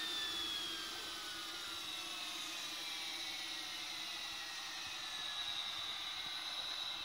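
JETPOL GTM100 micro turbojet spooling down at near-zero thrust: its high turbine whine falls steadily in pitch over an airy hiss, then holds at a steady high whine near the end.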